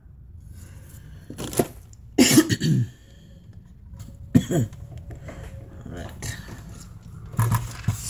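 Clicks and light knocks from handling a metal front panel and its wiring, with a couple of short throaty vocal sounds falling in pitch, such as a cough or grunt, a couple of seconds in and again about halfway.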